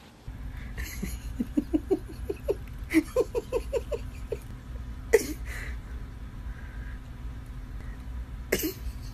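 A Shiba Inu, lying asleep, makes a run of short squeaky whimpers, about three a second, through the first half, with a few louder sniffs now and then. A low steady hum sits underneath.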